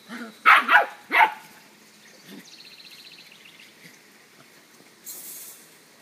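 Puppies barking: four quick, high barks in the first second and a half, then quieter.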